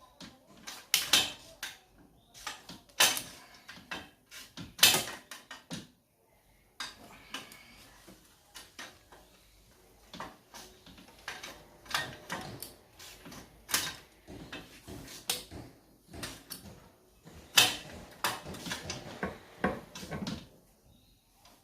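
Irregular clinks and knocks of metal hand tools and engine parts being handled and set down during engine assembly, some with a short ring.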